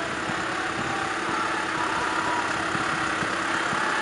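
Farm tractor's diesel engine running steadily at low revs as it pulls a trailer slowly past, getting a little louder after the first second.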